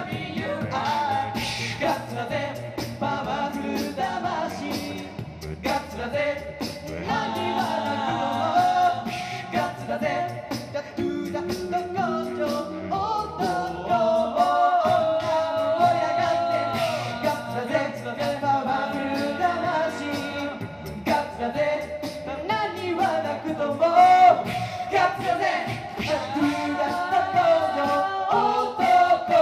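A male vocal group singing an upbeat song a cappella through microphones, with several voices in harmony over a vocal-percussion beat.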